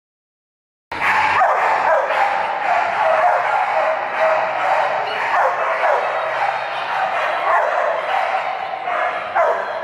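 Many dogs barking and yipping at once in a continuous, overlapping din, starting about a second in.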